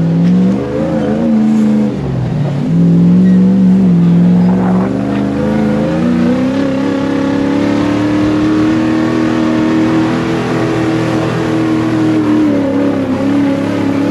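Off-road buggy's engine running under throttle on a dirt track. The revs dip briefly about two seconds in, climb steadily from about six seconds, then ease off slightly near the end.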